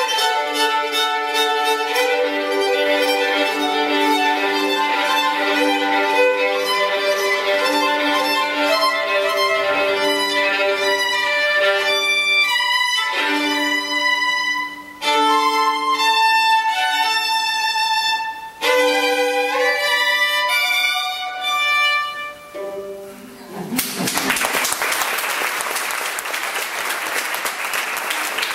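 A solo violin playing a melodic piece, at times sounding two notes together. The piece ends about five seconds before the close, and the audience breaks into applause.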